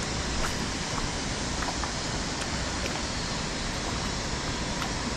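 River water rushing steadily, with a few faint small ticks on top.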